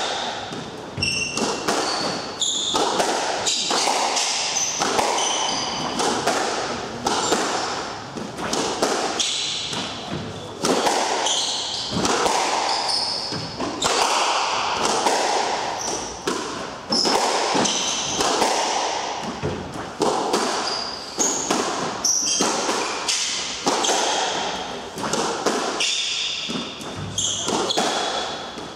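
Squash rally: the ball struck by rackets and hitting the court walls and floor in irregular sharp knocks, with short high squeaks of players' shoes on the wooden court floor.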